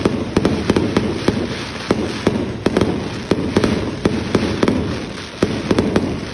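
Consumer aerial fireworks launching from the ground one after another and bursting overhead: a continuous run of sharp pops and bangs, about two a second at uneven spacing.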